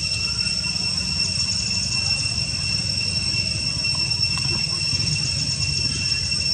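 A steady, high-pitched insect drone over a constant low rumble.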